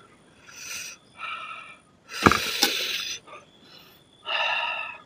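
Noisy mouth sounds of a man eating rice and chicken curry by hand: four bursts of slurping and sucking. The loudest, about two seconds in, carries two sharp clicks.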